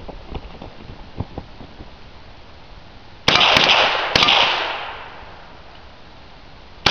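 Two AR-15 rifle shots fired about a second apart, each followed by a long echo that fades over about a second. A third shot goes off right at the end.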